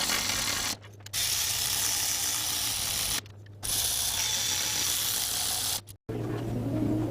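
Ratchet wrench working on engine fasteners during reassembly, with short breaks.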